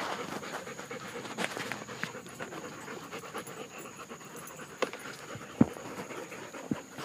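A dog panting steadily, with a couple of short sharp knocks about five seconds in.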